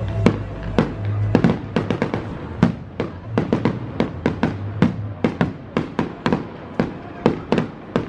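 Fireworks display: aerial shells bursting in rapid, irregular bangs and crackling pops, several a second, with music playing underneath.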